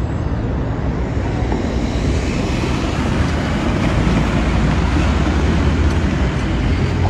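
Vehicles driving along a dirt road, heard as a steady low rumble of road noise with no clear breaks.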